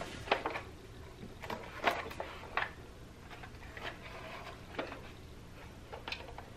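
Light clicks and knocks from a new waffle maker being handled and turned over in the hands, scattered and irregular, with a few sharper knocks near the middle.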